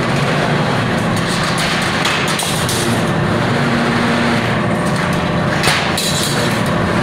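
Steady machine hum and noise from a CNC rebar stirrup bending machine, with two sharp knocks, one about two seconds in and another a few seconds later.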